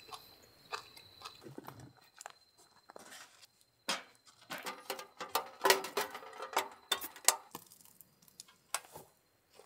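Split firewood being handled and stacked into a small metal fire stand: a run of wooden knocks and clatters, densest in the middle of the stretch.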